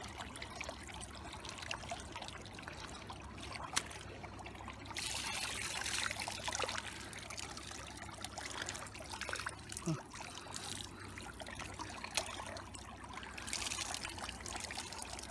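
Shallow water trickling and pouring, louder for a couple of seconds about five seconds in and again near the end, with a few small clicks.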